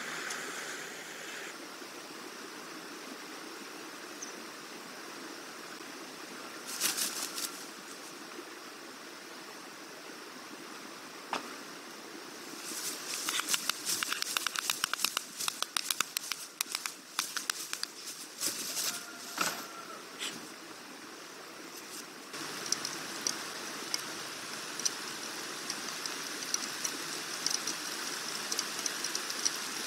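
White storks clattering their bills in rapid rattling runs of clicks: a short burst about 7 s in, then a long run of about eight seconds while the pair mates on the nest. Later a steady hiss takes over.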